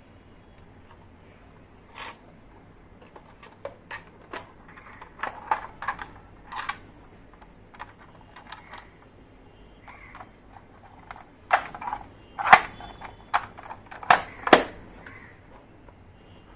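Small plastic play-kitchen toy pieces being handled, with irregular light clicks and taps and faint rustling between them. The sharpest knocks come in the last few seconds.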